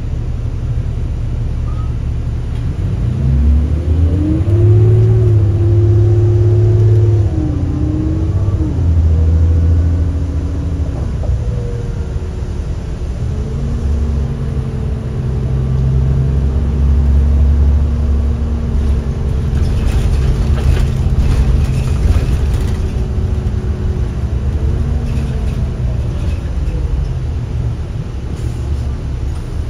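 Inside a 2005 New Flyer D40LF city bus, its Cummins ISL diesel and Allison B400R automatic transmission pulling the bus along. The engine tone climbs as the bus accelerates about three seconds in, drops back near eight seconds and fades, then climbs again about thirteen seconds in, holds steady, and falls away near twenty-five seconds.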